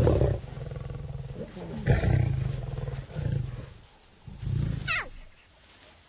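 Lions snarling and growling in a squabble over food: four loud, deep rasping snarls, the first the loudest, and a short high cry falling steeply in pitch near the end.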